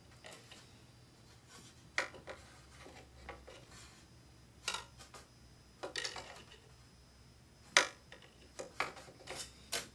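Scattered small plastic and metal clicks and knocks of a RAM module being handled and pushed into a memory slot on a Mac Pro's memory tray, the loudest about eight seconds in.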